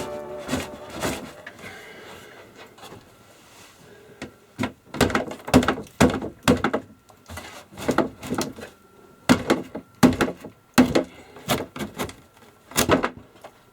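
Irregular knocks and thuds in a small interior space: a few faint ones at first, then from about four seconds in a run of sharp hits coming in uneven clusters.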